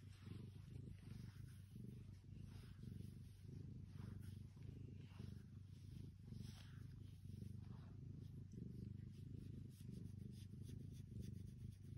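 Domestic cat purring steadily while being petted, a low continuous purr.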